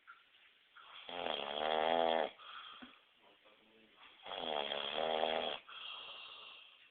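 A man snoring loudly in his sleep: two long snores about three seconds apart, each lasting a little over a second.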